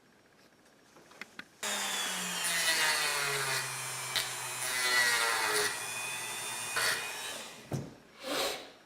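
Handheld rotary tool (Dremel) grinding PVC pipe. It starts suddenly, its motor pitch drops as it bites into the plastic, then holds steady before cutting off after about five seconds. A short scraping burst follows near the end.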